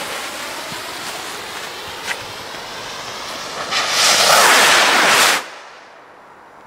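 Fireworks rocket fuses fizzing with a steady hiss and a small crackle, then two rockets launching about four seconds in with a loud rushing whoosh. The whoosh cuts back to a fainter hiss after about a second and a half as they climb away.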